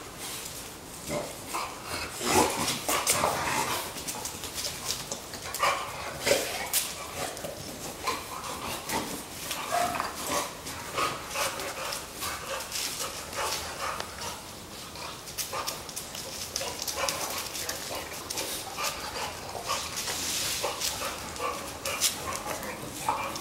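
Two dogs play-fighting, with short, irregular dog vocalizations mixed with scuffling and clicking of paws and bodies on a stone floor.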